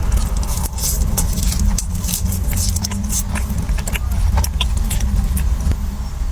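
Close-up crunching and chewing of crispy fried chicken wings: many short, sharp crackles and clicks, over a steady low rumble.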